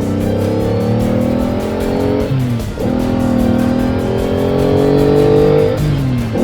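Vehicle engine accelerating hard, its pitch climbing steadily and dropping sharply twice as it shifts up through the gears.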